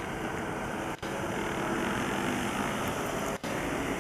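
Volkswagen Transporter van ambulance's engine running as it pulls out and drives off, over a steady wash of city traffic noise. The sound drops out for an instant twice, about a second in and near the end.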